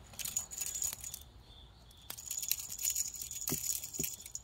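Faint, scattered clicks and light rattling as harnessed kittens scuffle in and against a cardboard box, with leash and harness fittings knocking about.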